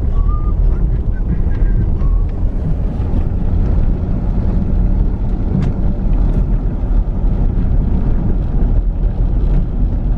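Vehicle driving slowly over a muddy, rocky dirt road, heard from inside: a steady low rumble of engine and road noise, with a few faint squeaks in the first couple of seconds and light knocks from the rough ground.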